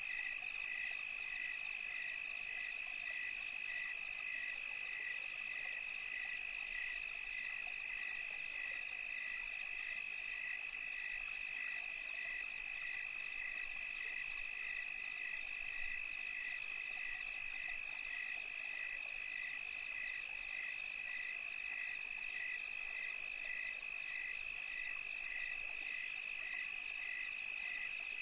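Night chorus of calling animals: a steady high-pitched trill, with a second call pulsing evenly just under twice a second.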